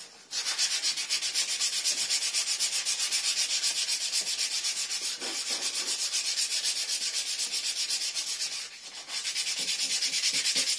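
Sandpaper scrubbed fast back and forth over the rusty steel end of a motorcycle handlebar, taking off rust and old grip glue where the throttle tube sits. The strokes come about four a second, stop briefly about nine seconds in, then start again.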